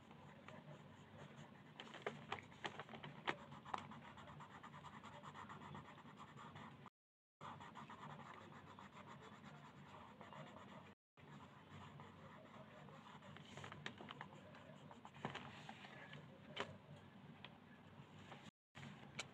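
Faint scratching of a coloured pencil shading on paper, with a few sharper ticks of the lead about two to three seconds in and again around fifteen to seventeen seconds in. The sound drops out to silence briefly three times.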